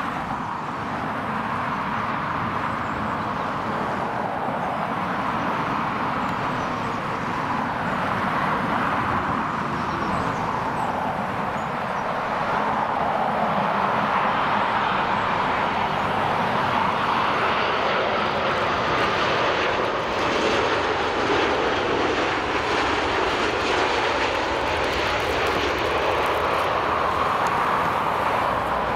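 Jet engines of a Qatar Airways Boeing 787 on final approach to land: a steady rushing engine noise that grows a little louder about halfway through as the airliner comes close to the runway.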